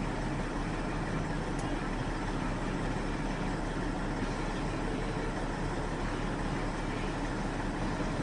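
Log truck's diesel engine running steadily with an even rumble.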